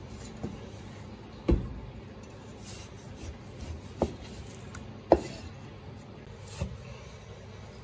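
A Chinese cleaver slicing through a block of raw beef on a plastic cutting board: quiet scraping strokes of the blade through the meat, with about five sharp knocks as the blade meets the board.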